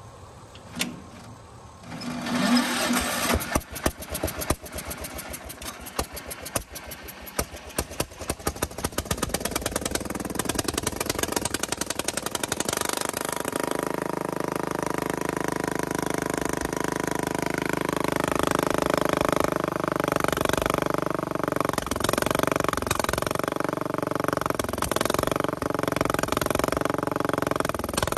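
Power King garden tractor's small engine being cranked, firing unevenly at first and then catching about ten seconds in. It settles into a steady run and grows louder a little past halfway. This follows work on the ignition points, where a blue spark had just been found.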